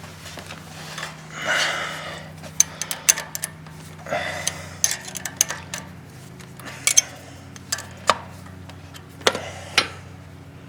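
Hand tools and metal parts clinking and scraping during removal of the starter on a 2006 Honda Rancher TRX 350 TE ATV: a run of sharp, irregular metallic clicks and clanks with a couple of short scrapes, over a low steady hum.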